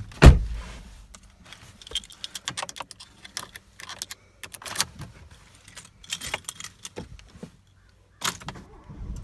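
A set of car keys jangling and clicking as a hand works a key on its ring at the steering column. A single heavy thump comes just after the start, the loudest sound.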